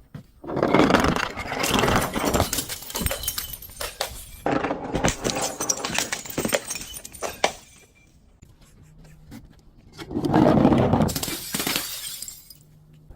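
Glass bottle being broken and crushed: dense crunching with many sharp clicks of shards, in two bouts, the second starting about ten seconds in after a quieter pause.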